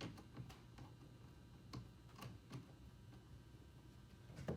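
A few faint, scattered clicks and knocks from kayak seat parts being fitted together.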